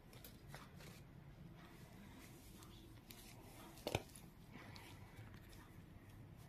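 Quiet handling of a small acrylic gem with a gloved hand: faint rustles and ticks, and one sharp click about four seconds in.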